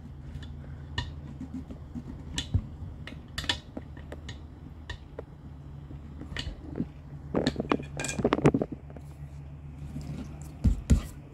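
A metal pry bar clinking and scraping against the wheel and tire as the tire bead is levered past the TPMS sensor. Scattered sharp clicks and taps come over a steady low hum, with a flurry about eight seconds in and a dull thump near the end.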